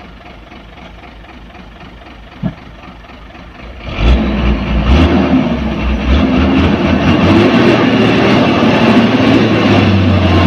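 Hino 500 dump truck's diesel engine working on a rough dirt haul road. About four seconds in it gets much louder, its pitch rising and falling, with some clatter over the top.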